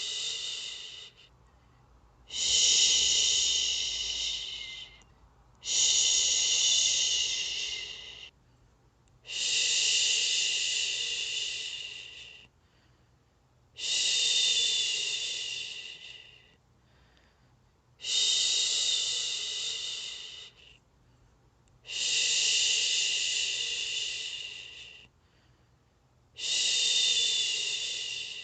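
A person shushing: a long, hissy "shhh" about three seconds long, repeated roughly every four seconds, each starting suddenly and trailing off, with short quiet gaps between. This is the soothing shush used to settle a baby to sleep.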